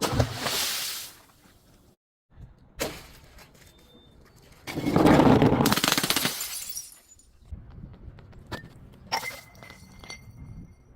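Glass bottles being smashed: a sudden crash at the start, then a louder, longer crash of shattering glass about five seconds in, followed by a few light clinks near the end.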